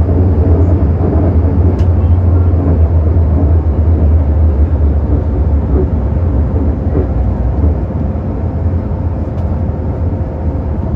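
Inside a Metro-Cammell M-Train car on the move: a loud, steady low rumble of wheels and running gear with a faint steady whine above it. The rumble eases slightly toward the end.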